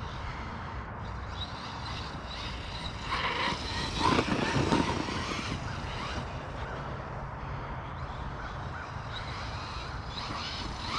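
Electric RC truck (Losi Lasernut) being driven, its motor whine and tyre noise coming and going, loudest about three to five seconds in.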